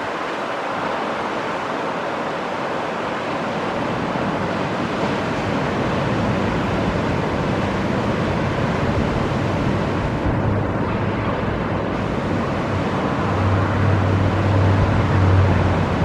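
Ocean surf breaking and washing on a sandy beach, with wind buffeting the microphone; a low rumble builds and gets louder in the second half.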